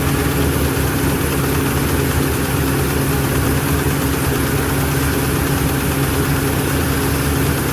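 Ford 6.2L V8 gasoline engine idling steadily with a misfire, which a relative compression test traces to an engine-mechanical fault in cylinder 7.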